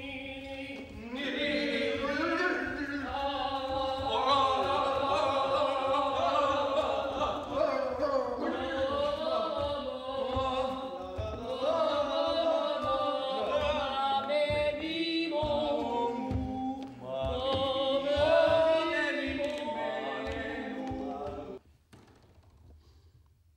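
Music with voices singing together in a choir-like way, cutting off suddenly about 22 seconds in.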